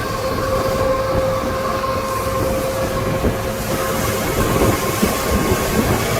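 Fishing boat's engine running steadily under way, a constant drone with a steady hiss over it.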